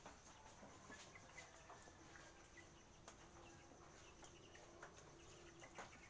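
Near silence: faint outdoor ambience with a steady high-pitched hum and scattered faint ticks, and a faint low steady tone from about two seconds in until near the end.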